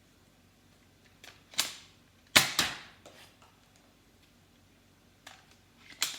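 Nerf Elite 2.0 Volt dart blaster being primed and fired: a series of sharp plastic clacks and pops, the loudest a pair about two and a half seconds in and another just before the end.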